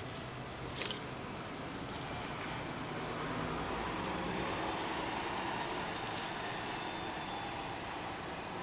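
A city transit bus driving past, its engine and tyre noise swelling as it comes closest and then easing off. A short sharp click sounds about a second in.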